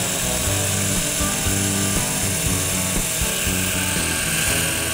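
Breville All in One hand-blender motor running steadily at speed, driving the chopping blade in its processor bowl as olive oil is drizzled in to emulsify a vinaigrette.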